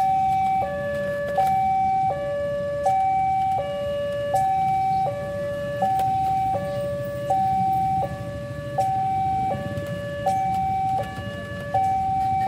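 Electronic railway level-crossing alarm sounding its two-tone warning, a higher and a lower tone alternating evenly about every three-quarters of a second, which signals an approaching train.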